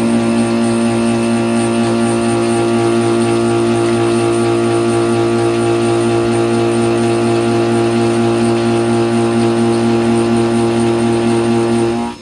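PM25 CNC mill roughing 4340 steel with a carbide end mill, the tool worn dull from earlier use: a loud, steady cutting tone made of several held pitches. It cuts off suddenly near the end as the cutter leaves the end of the block.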